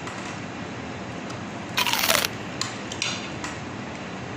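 A single loud crunch of a bite into crisp food about two seconds in, followed by a few light clicks.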